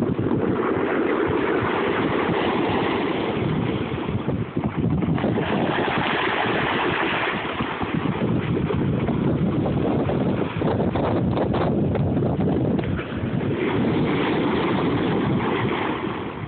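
Sea waves breaking and washing over a stony beach, the surf swelling and easing every few seconds, with wind rumbling on the microphone.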